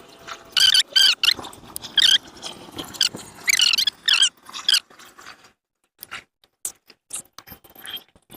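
A series of short, high, wavering squeaks, about six in the first five seconds, as trim is pressed and rubbed into place around a boat window. After them come light clicks and taps.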